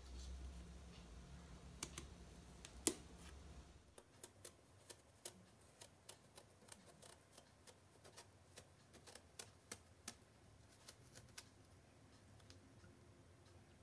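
Paring knife cutting strips of skin off a raw aubergine: faint, irregular crisp clicks and snicks as the blade bites through the skin, with one louder click about three seconds in and quicker clicks after that.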